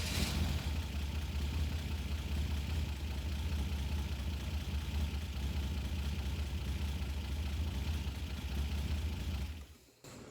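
Buick Grand National V6 engine catching and idling steadily with the EEPROM chip pulled from its engine computer, then shut off suddenly near the end. That it runs at all without the chip is, to the owner, more and more a sign of a bad ECM.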